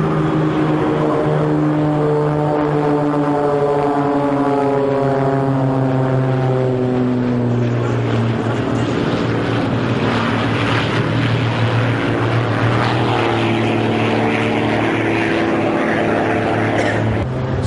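Propeller-driven aerobatic display planes flying overhead, a steady engine drone whose pitch falls over the first half as they pass.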